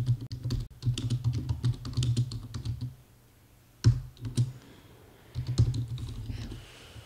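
Typing on a computer keyboard: rapid runs of keystrokes, broken by a short pause about three seconds in with a couple of single sharper key hits, then another run of typing.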